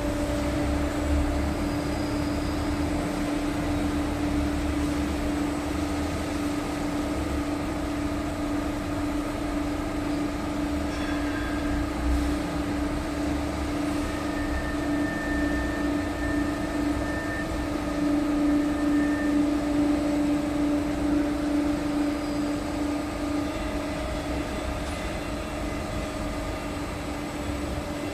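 Hydraulic pump unit running with a steady hum and a constant mid-pitched tone, feeding a hydraulic cylinder through its hose.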